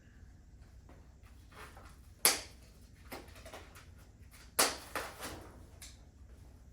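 Unboxing handling noises: a few faint knocks and rustles, and two sharp clacks about two seconds apart near the middle.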